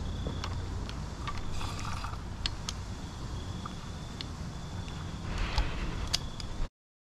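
Steady low wind rumble on the microphone in woodland, with scattered small clicks and ticks and a faint thin high whine that comes and goes. The sound cuts off suddenly near the end.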